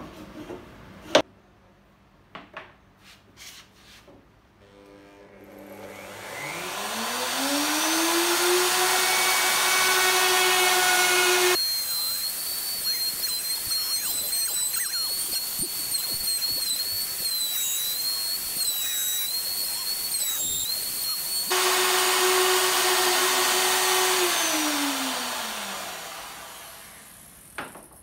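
A few clicks as the dovetail jig's clamps are handled, with one sharp click about a second in. Then a router motor spins up with a rising whine and runs at full speed, cutting dovetails through the jig's comb template with a wavering high whine. Near the end the router spins down with a falling whine.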